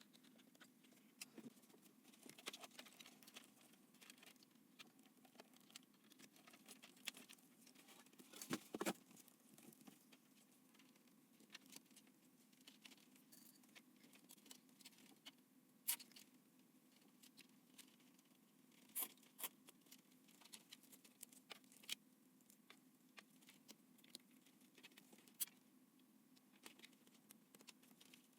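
Faint handling noises of PC parts being assembled: scattered small clicks and taps, with a louder cluster about nine seconds in, over a low steady hum.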